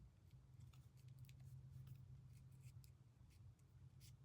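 Near silence: a low steady hum with scattered faint ticks and rustles of cardstock pieces being handled and pressed into place.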